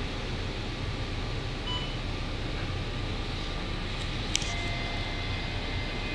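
Steady low rumble of a moving bus's engine and road noise heard from inside the cabin, with a short beep about two seconds in, and a click about four seconds in followed by a steady high tone.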